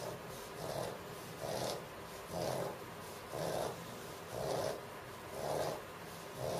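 A dog making rhythmic breathing noises, a soft rasping sound about once a second.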